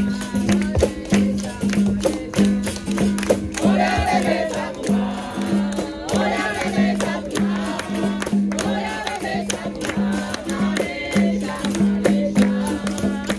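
Capoeira roda music: a berimbau's low note pulsing in a repeating rhythm over the shake of a caxixi rattle and the jingles of a pandeiro, with a group singing the chorus response in the middle.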